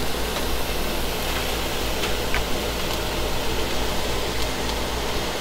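Kitchen range hood exhaust fan running with a steady whooshing hum.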